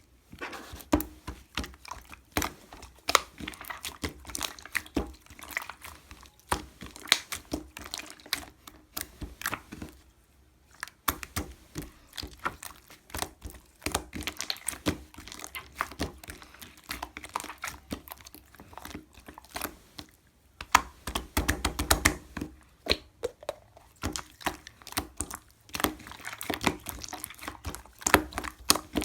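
Slime being squished and pressed by hand, giving dense, irregular sticky clicks and pops, with a short lull about ten seconds in.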